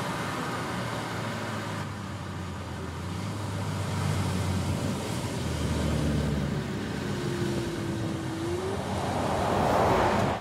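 Porsche Cayenne E-Hybrid Coupé's 3.0-litre V6 turbo engine running as the car drives, with tyre and road noise. A rush of noise builds to the loudest point near the end, then cuts off suddenly.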